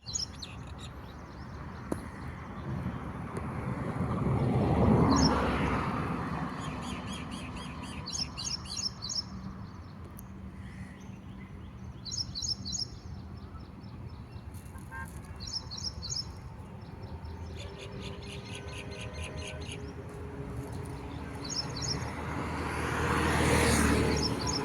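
Red-wattled lapwing giving its alarm calls: bouts of rapid, repeated high notes, recurring every few seconds, typical of a lapwing defending its nest. A passing vehicle swells and fades behind it around five seconds in, and again near the end.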